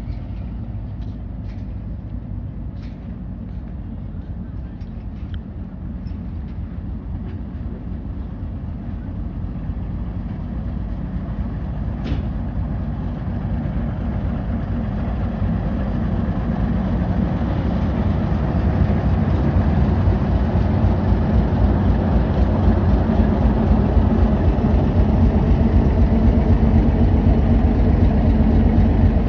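Diesel train locomotive running, its low rumble and engine hum growing steadily louder. A few faint clicks come in the first several seconds, and one sharp click about twelve seconds in.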